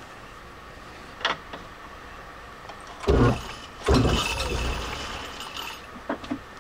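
Metal lathe's chuck and spindle being jolted round in short bursts: a loud clattering start with a deep rumble about three seconds in, a second about four seconds in that runs down over a second or so, and light clicks before and after.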